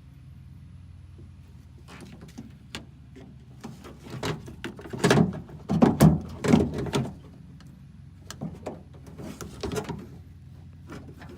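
Irregular clicking, knocking and rattling of a door lock actuator and its linkage rod being worked into place inside a 2012 Toyota 4Runner front door, as the rod is fed into its hole on the actuator. The loudest knocks cluster about five to seven seconds in.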